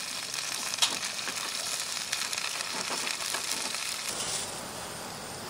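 Knife slicing through the crisp crust of grilled pork belly on a plastic cutting board: a run of crackly crunches, with one sharp click about a second in. The crunching stops about four seconds in.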